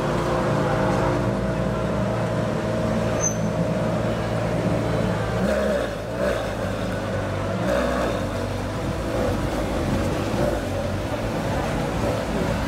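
Ferrari 599 GTO's V12 engine running at low revs while the car is driven slowly, a steady deep note without hard revving.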